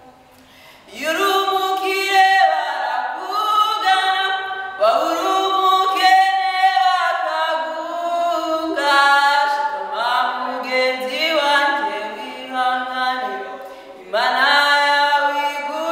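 Unaccompanied a cappella singing by several voices, in long held notes, starting about a second in after a brief pause.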